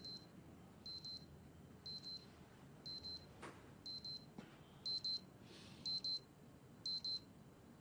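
Digital wristwatch alarm beeping: quick high-pitched double beeps about once a second, louder for the last three pairs.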